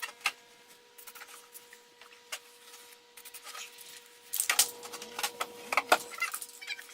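Scattered light clicks and knocks of objects being handled. They turn into a quick, dense run of rattling clicks about four and a half seconds in, over a faint steady hum.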